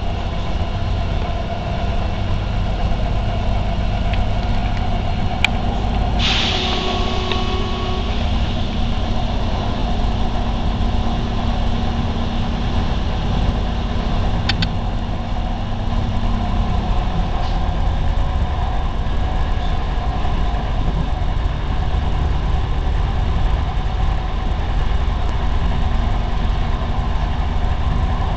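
Inside an SA133 diesel railcar under way: steady low engine drone and running rumble. About six seconds in comes a short hiss of air with two brief tones, and a little after a third of the way through the engine note drops.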